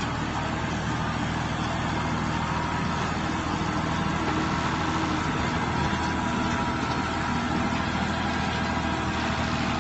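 Tractor with a front-end loader, its engine running steadily as it drives back and forth.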